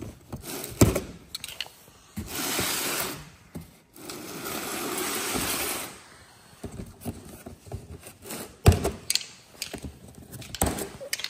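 Plastic locking clips being pulled out of a large cardboard box: several sharp snaps and knocks, with two longer stretches of cardboard scraping and rubbing, about two and four seconds in.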